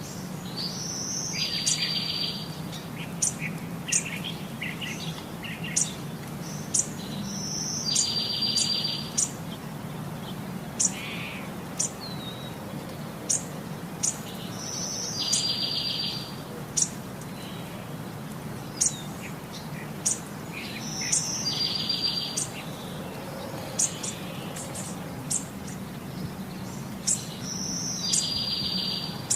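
Birds chirping, with short high chirps throughout and a buzzy trill pattern that repeats about every seven seconds, over a steady low hum.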